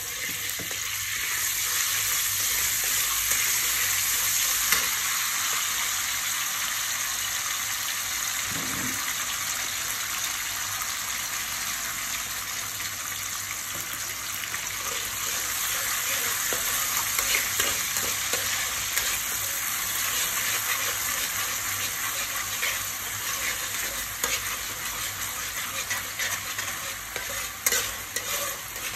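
Minced garlic and a spoonful of dark sauce sizzling loudly in hot oil in a metal pan. The sizzle starts suddenly as the sauce goes in, and a metal spatula scrapes and stirs against the pan.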